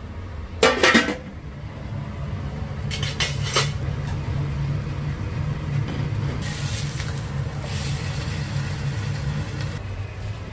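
Metal kitchen utensils and pans clattering: a loud sharp clatter about half a second in and a few lighter clinks around three seconds in, over a steady low hum.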